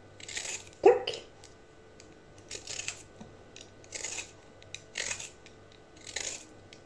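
Vegetable peeler scraping strips off a broccoli stem: about six short rasping strokes, roughly one a second. The loudest, about a second in, carries a brief pitched squeak.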